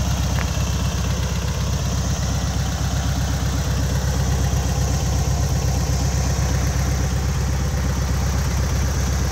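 1970 Volkswagen Beetle's air-cooled flat-four engine idling steadily, with an even, rapid pulsing.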